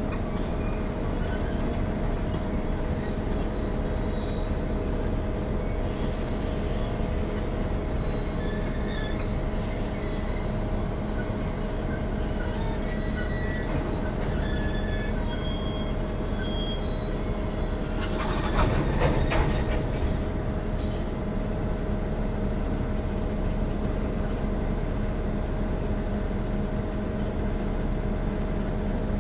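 Coal train cars rolling slowly past, with short high squeals from the wheels over a steady rumble. A louder rattling clatter comes about 18 seconds in and lasts a couple of seconds.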